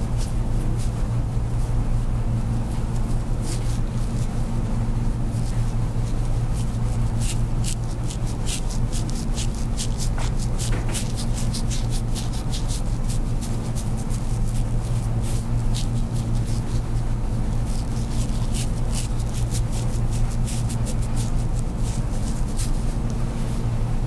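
A steady low machine hum, with faint light clicks scattered throughout.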